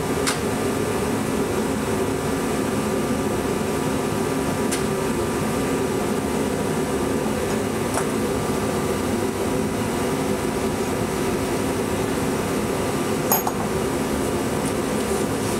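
Steady mechanical hum of a running fan-like machine, with a few light metallic clicks from parts being handled on the bench. The sharpest click comes near the end.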